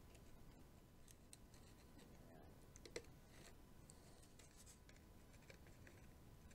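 Near silence with faint small clicks and scratches from hands handling and gluing 3D-printed plastic tail parts, and one slightly louder tap about three seconds in.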